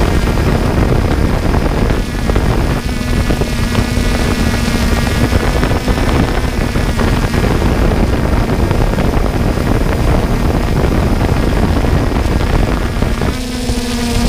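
A 3DR Solo quadcopter's propellers running in flight: a steady hum mixed with rushing wind noise on the microphone.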